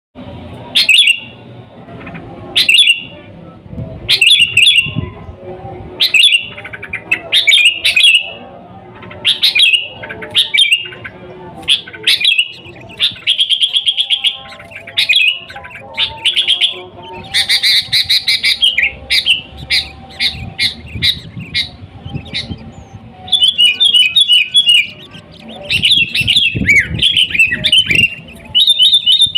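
Sooty-headed bulbul (kutilang) singing persistently: loud, short bubbling phrases about every one to two seconds, broken by a few quicker rattling runs of notes.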